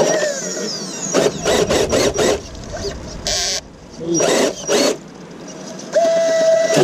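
Scale RC crawler's electric motor and geared drivetrain whining in short bursts as the truck is driven over wet rock, with rapid clicking and rattling in the middle. A steady whine is held near the end.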